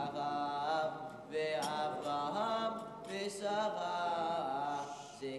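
A boy's solo voice chanting a Hebrew scripture reading to its cantillation melody, in long phrases of held notes that bend in pitch, with short breaks between phrases.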